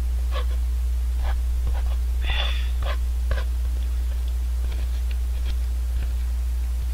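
A person sipping and gulping instant ramen broth straight from the cup: a run of short slurps and swallows, most of them in the first half. A steady low hum runs underneath.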